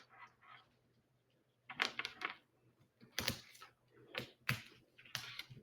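Adhesive tape being handled and pressed on to secure an IV catheter: a few short bursts of crinkling and clicking, starting after a quiet first second and a half.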